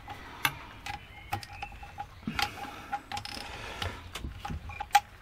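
Ratchet with an Allen bit clicking and working metal against metal while loosening the cylinder head bolts of a Suzuki RG500 engine. Scattered clicks, a quicker run of ticks a little after three seconds in, and one sharper click near the end.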